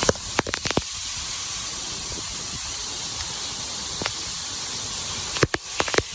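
Waterfall's steady rushing noise heard close up. Sharp clicks and taps come in a cluster near the start, once about four seconds in, and in another cluster near the end.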